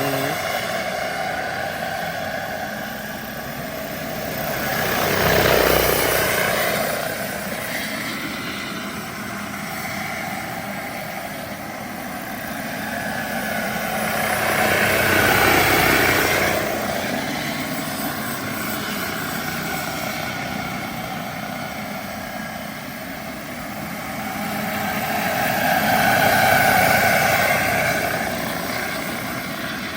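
Radio-controlled Vario Bell 212 scale helicopter with a JetCat PHT-3 XL turbine flying, its turbine whine and rotor sound steady. It swells three times as it passes close, the pitch rising then falling with each pass.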